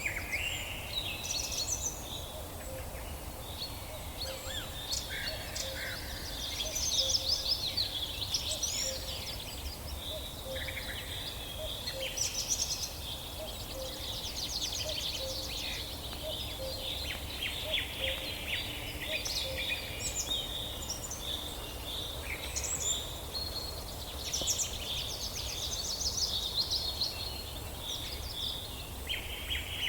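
Birds chirping and trilling, many short calls overlapping, over a steady low background rumble.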